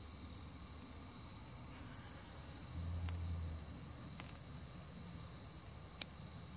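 Steady high-pitched insect chorus, crickets chirring. A brief low rumble comes about three seconds in, and a single sharp click near the end.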